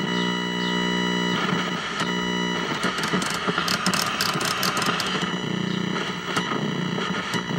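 1975 Sony Trinitron KV1712 colour TV running: a steady electrical buzz that cuts out and comes back a few times, with a stretch of crackling in the middle.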